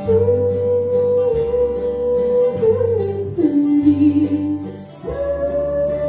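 Country yodel refrain sung live over acoustic guitar and bass accompaniment: a long held note that slides down to a lower note a little past halfway, then breaks up to a high held note near the end.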